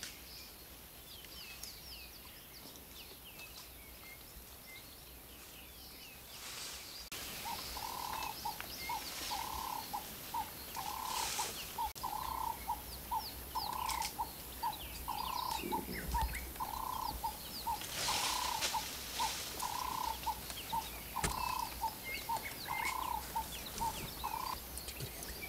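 Wild birds calling: many small birds chirping and twittering throughout. From about seven seconds in, one bird repeats a short mid-pitched note at a steady, even pace of roughly one to two a second.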